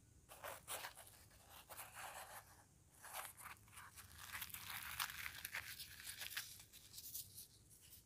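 Crisp deep-fried puri being torn apart by hand: a run of faint crackling, tearing sounds, thickest in the middle.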